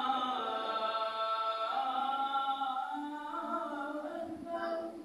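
A man's voice chanting the Islamic call to prayer (adhan) unaccompanied, one long drawn-out phrase whose pitch wavers and glides, breaking off near the end.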